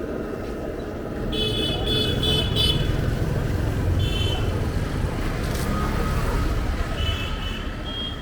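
Street traffic running, with vehicle horns honking several times: a run of short toots about a second in, another around four seconds, and two more near the end.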